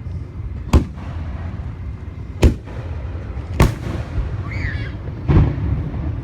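Aerial fireworks shells bursting: four sharp booms about one to two seconds apart, over a steady low background rumble.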